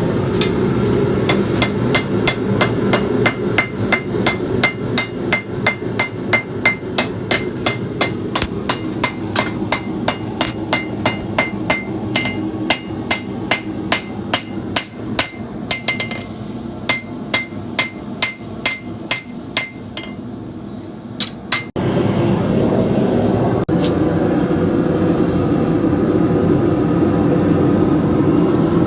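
Hand hammer striking hot steel on an anvil in a steady rhythm of about two to three blows a second, each blow leaving a bright ring. The hammering stops about three-quarters of the way through, and a steady rushing noise takes over.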